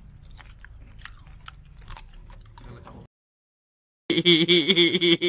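A man chewing crunchy apple jujube fruit close to the microphone, a run of small crunches and clicks for about three seconds. The sound then cuts out completely for about a second, and a loud inserted sound effect with a wavering pitch cuts in near the end.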